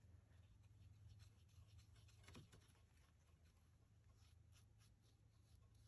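Near silence: faint, scratchy strokes of a paintbrush working acrylic paint on the palette and paper, over a low steady hum.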